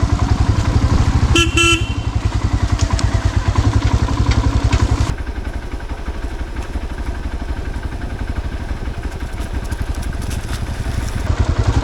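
Royal Enfield Himalayan's single-cylinder engine running with an even low thump, with a short horn toot about a second and a half in. About five seconds in the sound turns quieter and duller.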